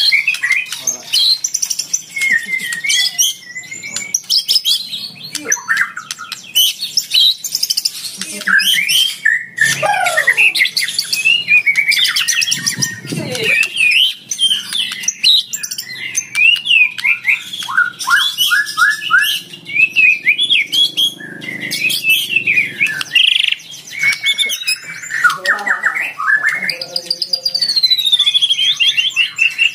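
White-rumped shama (murai batu) in full, continuous song: a fast, varied run of loud whistles, trills, rapid repeated notes and harsh chatter, with a long falling whistle near the end. This is the combative territorial song used as lure audio to provoke rival males into singing.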